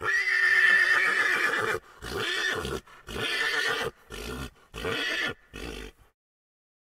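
Horse whinnying: one long high call of almost two seconds, then a run of about five shorter pulses.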